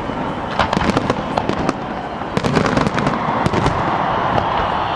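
Aerial firework shells bursting overhead in a fireworks display, with clusters of rapid sharp pops about a second in and again from about two and a half to three and a half seconds.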